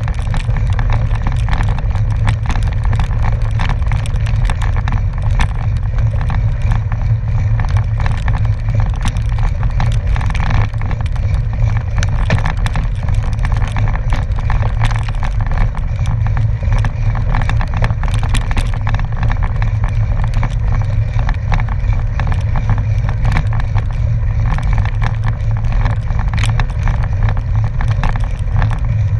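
Gravel bike rolling along a dirt-and-gravel road: a steady deep rumble of tyre noise and wind on the camera microphone, with constant small ticks and rattles from the gravel.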